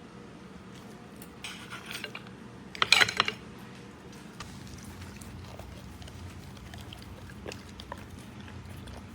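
Scattered clicks and rattles, with a louder burst of clattering about three seconds in, then a steady low rumble.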